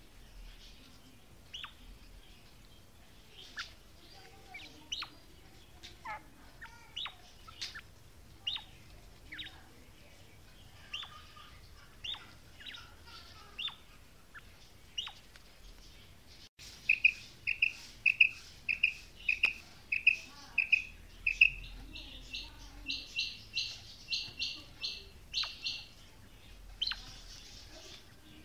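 Female quail calling. Scattered faint, short falling chirps give way, after an abrupt cut about halfway, to a louder run of clipped calls at about two a second, then a faster, higher-pitched series.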